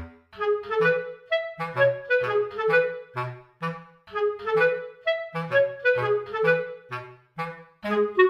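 Upbeat background music: a lively melody over a bass line that bounces about twice a second.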